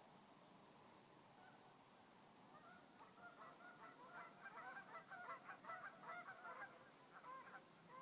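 A flock of geese honking faintly, many short overlapping calls starting about two and a half seconds in.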